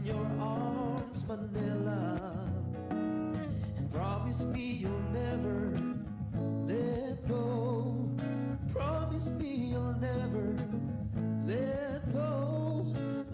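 Background music: a song with guitar and a wavering sung melody over a steady bass line.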